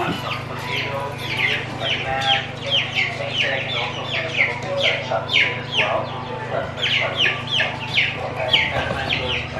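Young pullets peeping and cheeping, a quick run of short, high calls that fall in pitch, several a second.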